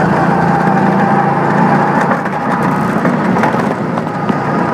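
Go-kart engine running at a steady speed, heard from aboard the kart as it drives the track, with a level hum that does not rise or fall.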